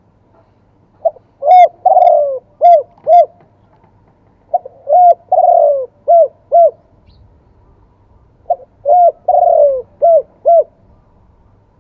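Spotted dove cooing: three matching phrases about four seconds apart, each of five notes with a longer, falling coo in the middle.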